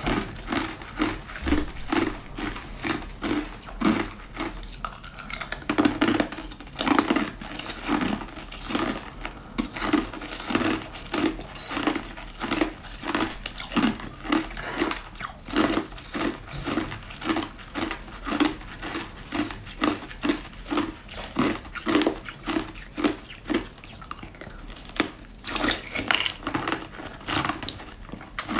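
Crunching and chewing of frozen basil-seed ice, bite after bite at about two crunches a second.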